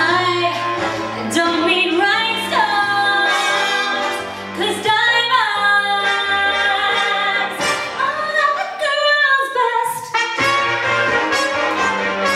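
A woman singing over brass-led band music, her voice gliding between held notes above a walking bass line.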